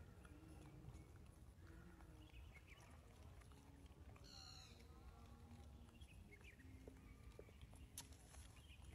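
Faint sounds of a baby macaque eating a tangerine, small smacks and clicks of chewing and handling the fruit, with a short high chirp about four and a half seconds in.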